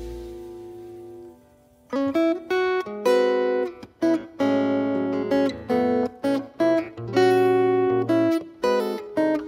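The last of a piano chord fades away, and after a brief hush a Larrivée acoustic guitar comes in alone, playing plucked chords in short phrases with small breaks between them.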